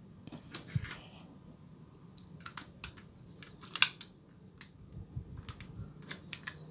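Hands handling a plastic drone controller and thin copper foil sheets: scattered sharp clicks, taps and short crinkling rustles, the loudest a cluster of clicks about four seconds in.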